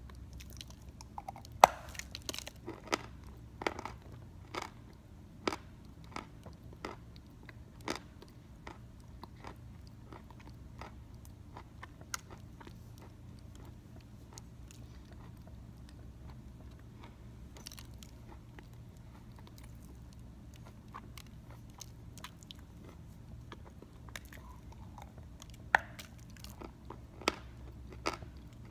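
Teeth biting into and crunching a lump of Belgorod edible chalk, then chewing it. There are many sharp crunches in the first several seconds and again near the end, with sparser, quieter chewing between.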